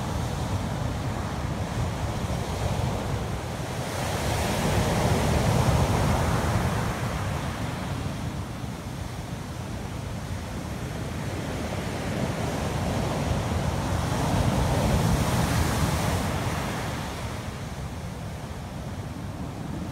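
Ocean surf breaking and washing onto a beach, with wind buffeting the microphone. The roar of the breakers swells twice, about a quarter of the way in and again past the middle.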